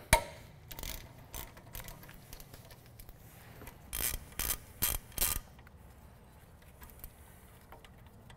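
Ratchet and 13 mm socket clicking as the brake caliper slide bolts are loosened, in short runs of clicks with a louder run of about five strokes around four to five seconds in.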